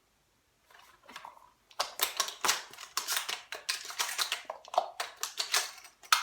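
Rapid clicking and rattling of 12-gauge shotgun shells being loaded into a shotgun's tube magazine, starting about two seconds in after a few faint clicks.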